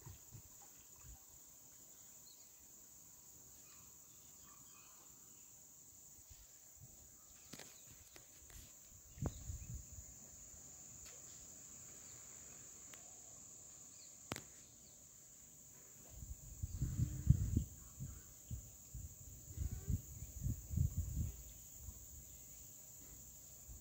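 Steady high-pitched chorus of insects, crickets among them. Bursts of low rumble come and go over it, loudest in the last third.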